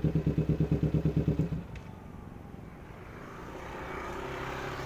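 Motorcycle engine running with a rapid, even pulsing beat, cutting off about a second and a half in. A fainter engine hum then rises toward the end.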